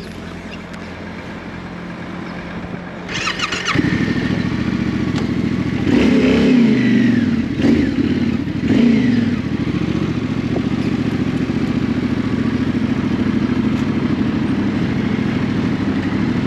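Yamaha Ténéré 700's parallel-twin engine being started: a short starter whirr about three seconds in, then the engine catches and runs. Its revs rise and fall three times as the bike pulls away, then it runs steadily at low speed.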